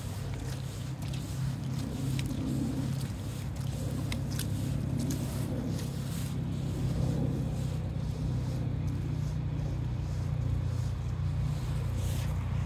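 Steady low engine drone with faint scattered clicks.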